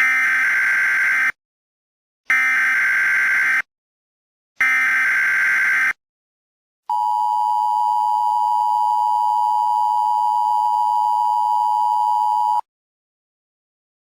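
Emergency Alert System opening: three short screeches of SAME digital header data, each about a second long, then the two-tone attention signal, a steady buzzing dual tone held for about six seconds that cuts off sharply.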